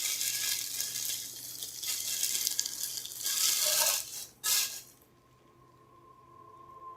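Crinkling and rustling of packaging being handled as the barcode scanner is unpacked, with a few sharp clicks. It cuts off suddenly about five seconds in, and soft music begins near the end.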